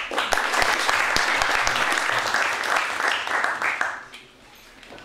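A room full of people applauding, a burst of clapping that dies away after about four seconds.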